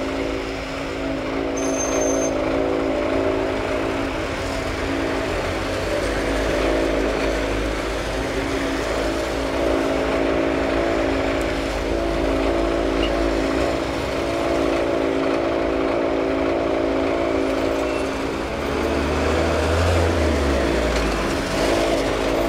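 Engine of a pothole-patching rig running steadily with an even droning hum. A low rumble swells briefly near the end.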